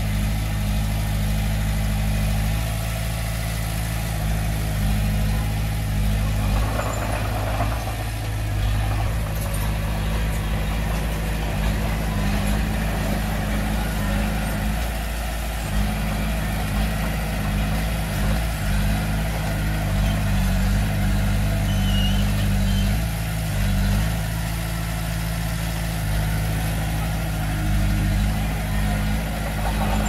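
Crawler bulldozer's diesel engine running steadily, with its note shifting a few times as the load changes. A brief rougher, higher noise comes in about seven seconds in.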